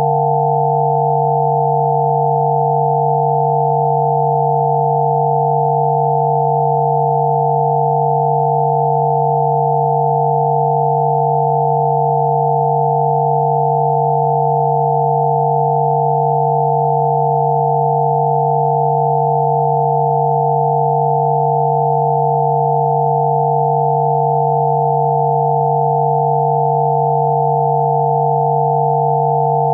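Synthesized 'healing frequency' tones: a low tone and several higher pure tones sounding together, held perfectly steady without a break.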